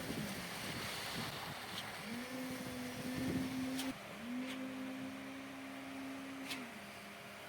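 Heavy construction machine's diesel engine running, its speed rising about two seconds in and dropping back near the end, with a few sharp clicks.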